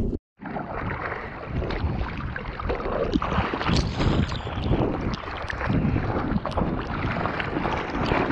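Water splashing and churning against a surfboard and the surfer's paddling arms, close to the microphone, with many small irregular splashes. The sound cuts out completely for an instant just after the start.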